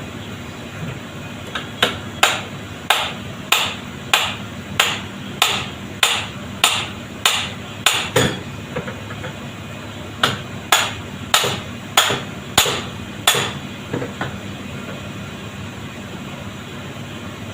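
Hammer blows on metal, striking the car generator being dismantled. About a dozen evenly spaced blows come at roughly one and a half a second, then after a short pause about six more.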